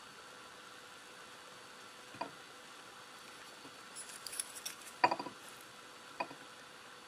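Wooden chopsticks tapping against a ceramic plate three times, the loudest about five seconds in, with a short patch of light crackling just before it as the fish is picked at.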